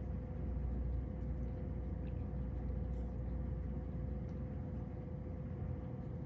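Steady low rumble with a steady hum, and a few faint soft clicks.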